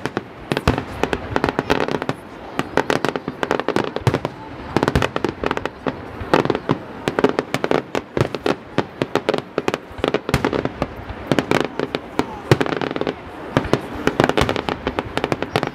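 Fireworks display: aerial shells bursting one after another, a rapid, irregular stream of sharp bangs and crackles with no pause.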